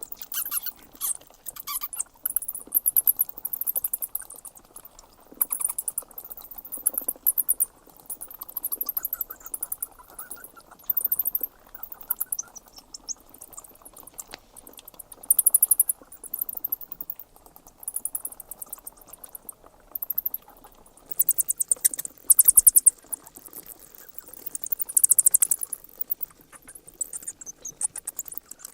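Bats squeaking: bouts of rapid, high-pitched chattering chirps lasting a second or two, coming again and again with short gaps between.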